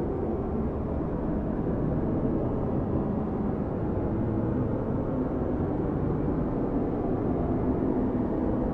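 Strong snowstorm wind blowing steadily, a low, even rushing noise with no gusts rising or falling.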